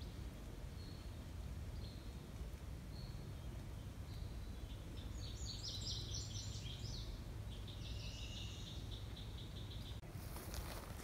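Wild birds singing: short high whistled notes repeated about once a second, then a busy burst of many quick notes in the middle and a buzzy trill after it, over a steady low outdoor rumble. Near the end, footsteps on grass begin.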